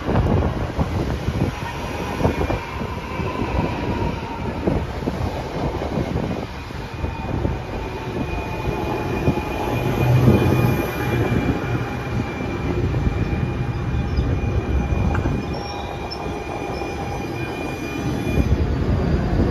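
NJ Transit Arrow III electric multiple-unit train rolling in along the platform as it arrives at the station, its wheels rumbling and clattering over the rails. A steady high-pitched squeal runs through most of it as the train slows.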